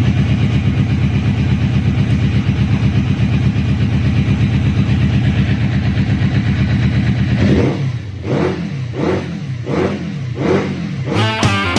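Yamaha FZX750's inline-four engine idling steadily, then revved in several quick throttle blips that rise and fall in pitch. Rock music starts near the end.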